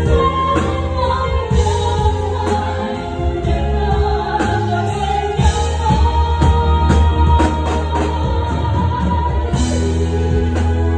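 Live pop ballad: a female singer holds long, drawn-out sung notes through a microphone over a band with a steady beat and heavy bass.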